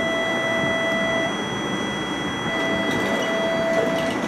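Electric tram pulling away from a stop: steady high electronic tones over the running noise of the car, with a lower tone that drops out about a second in and returns about a second later, and a few light clicks near the end.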